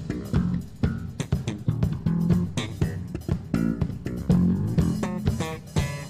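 A band playing a Banjar pop song, with bass guitar, guitar and drum kit.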